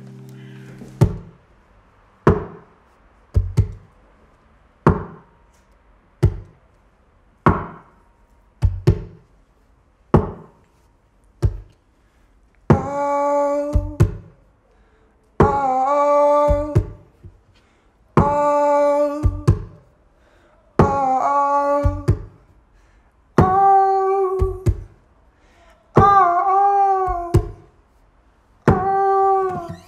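A live acoustic song intro: a steady beat of percussive thumps, about one every 1.2 seconds with an occasional quick double. From about 12 seconds in, a man's voice sings long wordless notes, each held about two seconds, between the thumps.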